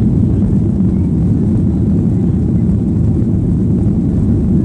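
Steady low rumble of a Boeing 737-800's CFM56 jet engines and airframe, heard from inside the passenger cabin as the airliner taxis.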